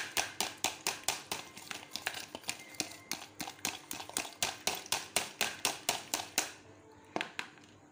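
Fork beating chili garlic sauce and ketchup in a plastic bowl to thin it, a quick steady clicking of about five strokes a second. The beating stops about six and a half seconds in, followed by a couple of lighter taps.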